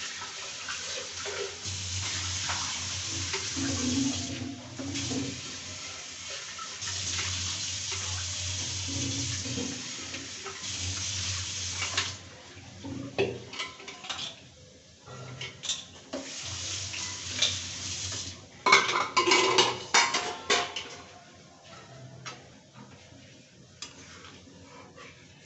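Chana dal with its tadka bubbling and sizzling in a metal kadai, a hiss that swells and drops for the first half. In the second half a metal spatula clinks and scrapes against the pan, loudest in a burst of scraping a few seconds before the end.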